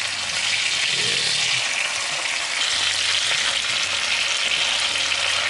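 Seasoned steaks sizzling in hot oil in a De Buyer iron skillet, a steady frying hiss that gets louder about half a second in as the meat goes in.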